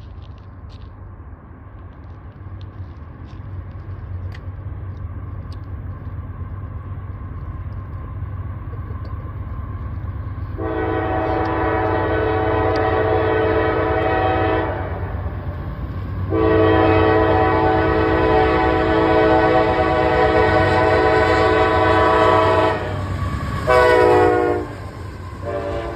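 A CSX freight train approaches, its low diesel rumble growing louder, and the locomotive's air horn blows a chord of several tones: two long blasts, then a short one and the start of another, the grade-crossing signal. Near the end the horn's pitch drops as the locomotive passes.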